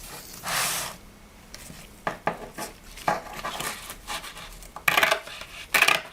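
Scissors cutting a strip of hook-and-loop (Velcro) tape: a half-second scrape about half a second in, then a series of short snips.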